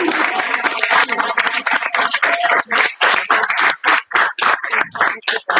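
Audience applauding. The dense clapping thins out over the second half into a few separate claps.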